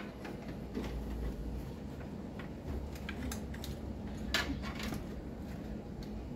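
Scattered light metallic clicks and clinks of a sheet-metal drive bracket and parts being handled and fitted inside a small metal PC case, with one louder click about four seconds in.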